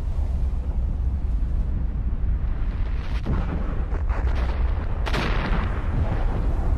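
Volcanic eruption from shallow water: a deep, continuous rumble with sharp explosive blasts about three, four and five seconds in, the loudest a little after five seconds, as jets of ash and rock burst up through the water.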